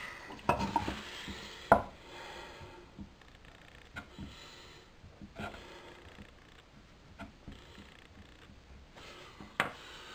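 Handling sounds at a wooden workbench: a few sharp knocks and taps as a small pine block, a pencil and a white-painted metal plant pot are moved and set down on the boards, with light pencil scratching between. The loudest knock comes a little under two seconds in, another shortly before the end.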